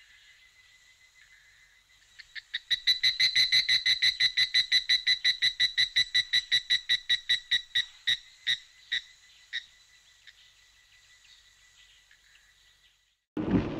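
A frog calling: a long, rapid series of short pulsed notes, about seven a second, that starts a couple of seconds in, then slows and fades out after about seven seconds.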